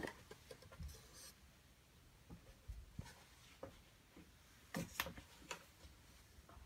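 Faint, scattered knocks and rubbing sounds of someone climbing a wooden ship's ladder into a loft, a cluster of louder knocks about five seconds in.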